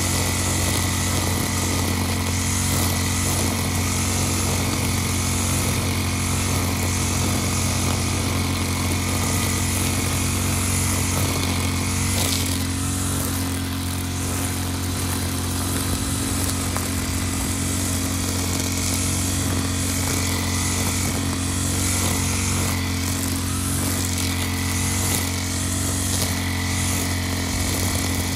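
Backpack brush cutter's petrol engine running steadily while the cutting head sweeps through tall grass.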